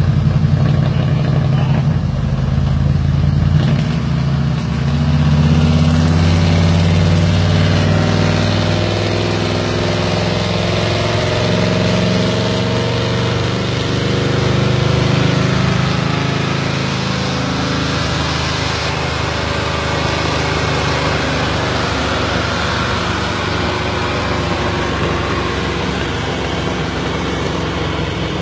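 Car engine running steadily at low revs on a chassis dyno, an even low drone with little change in pitch.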